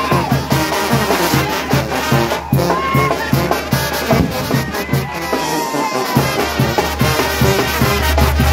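Mexican brass band (banda de viento) playing lively dance music, with horns over a steady drum beat.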